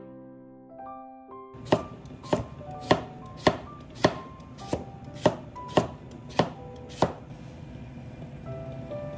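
Chef's knife slicing a carrot into rounds on a wooden cutting board: about ten even chops a little over half a second apart, starting about a second and a half in and stopping a couple of seconds before the end. Soft background music throughout.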